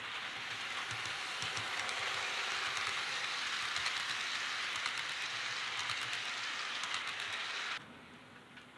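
HO scale model train, a diesel locomotive pulling flat cars on newly fitted steel wheels, rolling along the track: a steady rushing hiss with faint rapid clicking from the wheels on the rails. It stops suddenly near the end.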